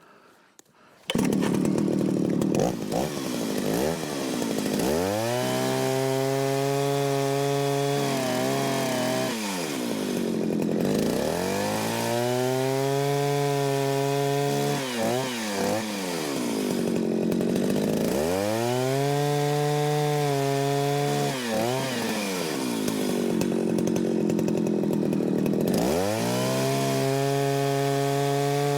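1970s Jonsered 801 chainsaw running with a 32-inch bar and skip-tooth chain, coming in loudly about a second in. It cuts through logs four times: the engine pitch drops and holds low under load in each cut, then climbs as it revs free between cuts.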